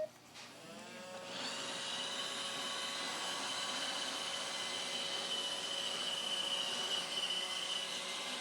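Roomba robot vacuum's motors spinning up about a second in, rising in pitch, then running steadily with a high whine.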